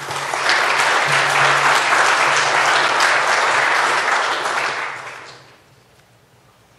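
Audience applauding for about five seconds, then dying away.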